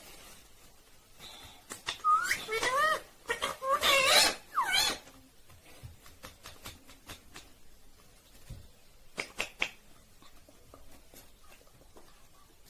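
Indian ringneck parrot calling: several loud, wavering, warbling calls in quick succession about two to five seconds in, then a few light clicks.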